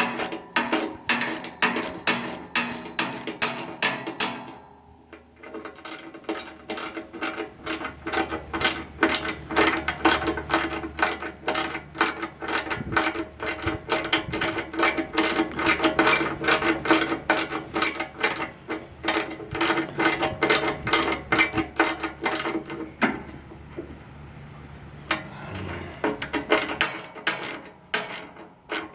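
Hand ratchet wrench clicking in rapid runs as screws are driven back in on a mini excavator, pausing briefly twice.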